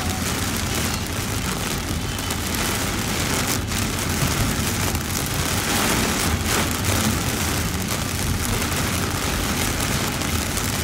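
Heavy rain hitting a car's windshield and roof, heard from inside the cabin, over steady road and tyre noise at highway speed.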